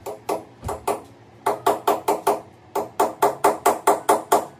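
Hammer blows on a fixing in a wall: a few spaced taps, then two quick runs of strikes at about five a second, each blow with a short ring.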